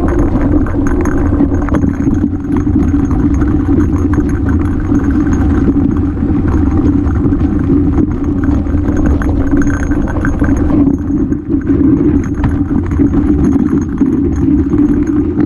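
Mountain bike descending a rocky trail, heard from a helmet camera: a steady rumble of tyres on dirt and rock with constant clattering and rattling from the bike over the rough ground.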